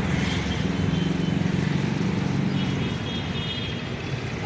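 Vehicle engine running steadily while driving through city traffic, a low hum that eases slightly in the last second or so.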